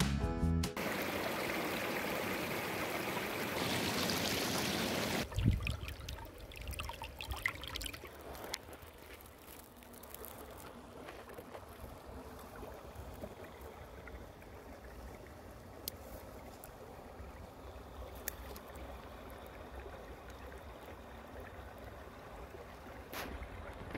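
Shallow stream water trickling, with a low rumble of wind on the microphone and a few faint clicks. A louder even rushing noise fills the first five seconds or so, just after a short tail of music.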